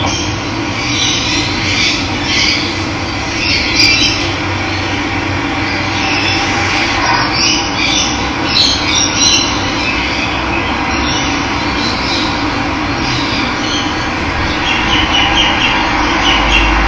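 Running water rushing steadily, with birds chirping and calling over it, and a low rumble coming in near the end.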